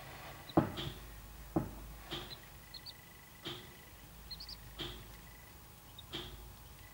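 Two sharp taps about a second apart as a corncrake chick pecks at a feeding syringe, with a few faint, very short high chirps. A soft tick repeats about every second and a third throughout.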